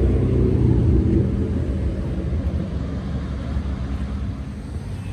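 An engine passing by, loud at first and fading away over the following seconds.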